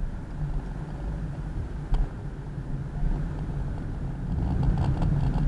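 Steady low rumble of a car's engine and tyres heard from inside the cabin while it drives slowly, with a single sharp knock about two seconds in and a run of light ticks near the end.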